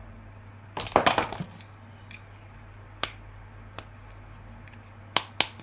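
Sharp plastic clicks and crackle from action figures and their packaging being handled: a quick cluster about a second in, single clicks at about three and four seconds, and two close clicks near the end, over a faint steady hum.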